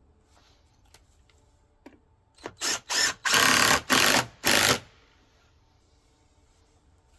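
Power drill driving screws into timber in a run of five or six short bursts over about two seconds, about halfway in.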